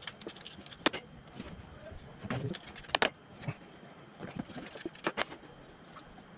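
Sped-up workshop sounds of tools clicking and clanking on metal as the engine of a 25cc backpack mist sprayer is unbolted from its frame: scattered sharp clicks, the loudest about one second and three seconds in.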